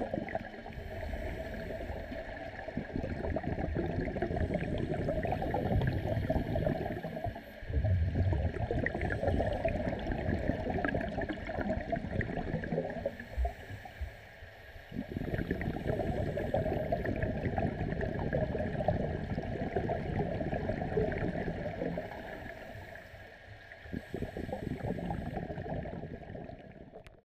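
Scuba divers' exhaled bubbles from their regulators, bubbling and gurgling as heard underwater, in long spells with quieter breaks about halfway through and near the end, then fading out.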